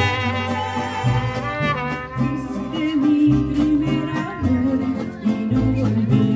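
Live mariachi music: violin, guitar and guitarrón strumming a steady rhythm with trumpet, while a woman sings into a microphone.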